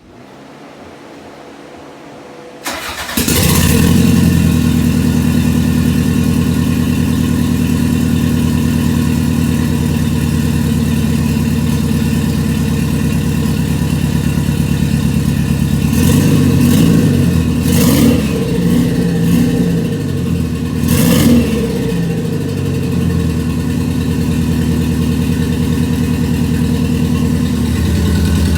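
Toyota MR2's Gen 3 3S-GTE turbo four-cylinder starting up for the first time after the engine swap, catching about three seconds in and then idling steadily. It is revved a few times in the middle before settling back to idle, with the intercooler piping not yet hooked up.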